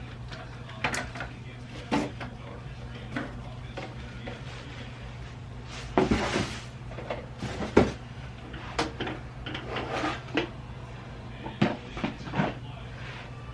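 Household objects being handled: scattered knocks and clacks, with a longer scraping rustle about six seconds in and one sharper knock soon after. A steady low hum runs underneath.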